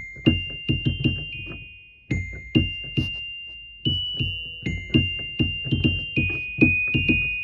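Electric keyboard playing a slow, halting line of high single notes, each starting sharply and ringing on as it fades, with a short break about two seconds in.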